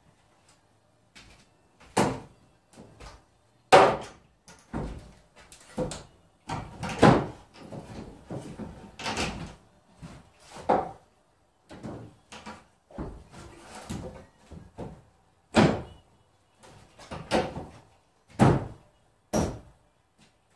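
Wooden knocks and thuds at irregular intervals, with some scraping between, as 2x4 framing lumber is handled and knocked into place in the wall framing of an opening.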